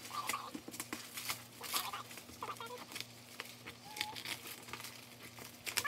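Packaging crinkling, rustling and tearing as it is opened, in quick runs of crackles, with a few short squeaky chirps heard here and there.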